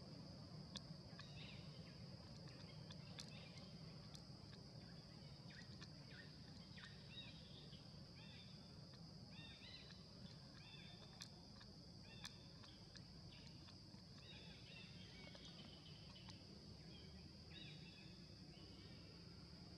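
Faint outdoor ambience: a bird repeating short chirping notes over a steady high-pitched insect drone, with a few faint clicks.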